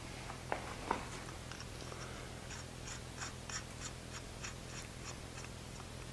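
Steel pivot bolt and nut of a fullering jig being fitted by hand. A couple of light metal clicks come first, then a run of faint, regular ticks, about three a second, as the nut is threaded on.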